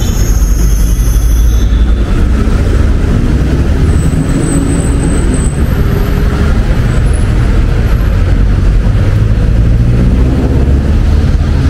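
City street traffic: a steady low rumble of passing cars and trucks. A high squeal fades out in the first couple of seconds.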